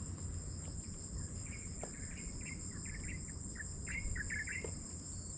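Insects calling steadily at a high pitch, with a scatter of short chirps in the middle seconds.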